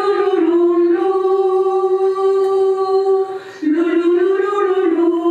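Unaccompanied singing: a voice holding long, steady notes. It breaks briefly about three and a half seconds in, then rises into another held note.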